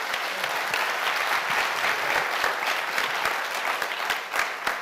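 Audience applauding: many hands clapping at once, steady.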